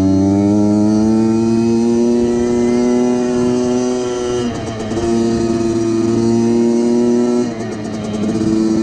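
Motorcycle engine pulling under throttle, its pitch climbing slowly, then dropping sharply as it shifts up a gear about four and a half seconds in and again about seven and a half seconds in.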